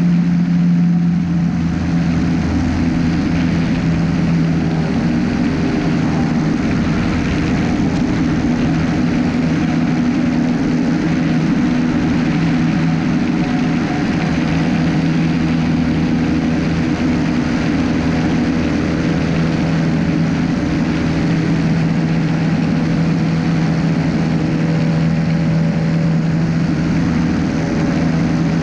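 Light aircraft's propeller engine heard from a camera mounted on the aircraft, a loud steady drone during the climb just after takeoff, with airflow noise over it. Its pitch settles slightly lower about a second in and then holds even.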